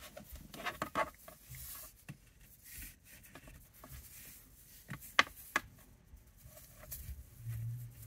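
Twisted natural-fibre rope being handled and worked into a knot: soft, scattered rustling and scratching of the strands against fingers and each other, with two sharp ticks about five seconds in.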